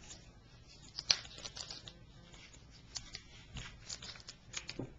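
Scattered light clicks and rustles of fly-tying tools and materials being handled at the vise, the sharpest click about a second in and a few more near the end.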